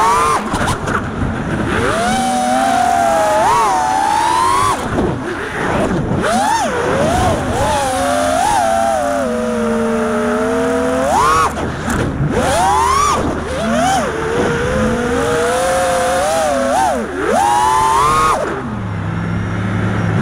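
5-inch FPV freestyle quadcopter's brushless motors and propellers whining, the pitch rising and falling constantly as the throttle is worked through the flight's moves, over a hiss of rushing air.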